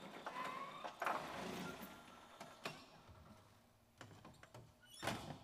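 A small car's door creaking open, knocks and bumps as a big man squeezes out of the car, then the door slammed shut hard near the end.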